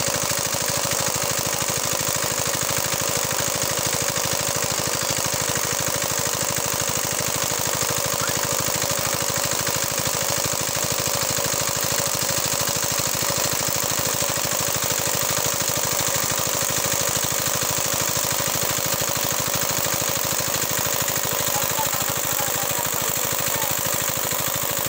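Water pump engine running steadily, with fast, even firing pulses and no change in speed.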